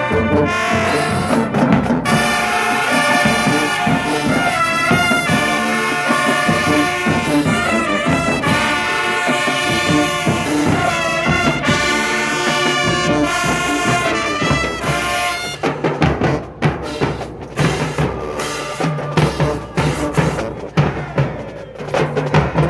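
Marching band playing loudly: the brass section, trumpets and trombones, plays a tune over drums, and about sixteen seconds in the horns largely drop out, leaving sharp, choppy drum hits.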